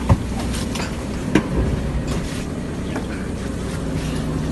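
Fishing boat's engine running steadily, with two sharp knocks, one right at the start and one about a second and a half in.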